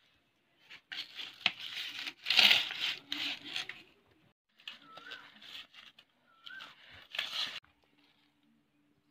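Charred, dry banana-leaf wrapping of a fish parcel crackling and crinkling as it is handled and torn open, in two spells of rustling with the loudest about two and a half seconds in.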